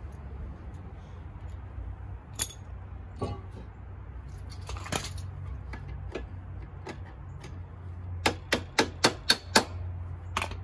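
Metal hand tools clicking and clinking as a wrench works the front fork clamp bolts of a scooter. Scattered single clicks give way, about eight seconds in, to a quick run of about seven sharp clicks, over a steady low hum.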